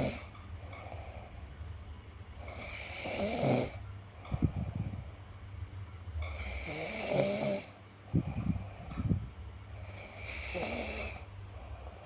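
Snoring: a noisy breath comes about every three and a half seconds, and between some breaths there is a low fluttering rattle.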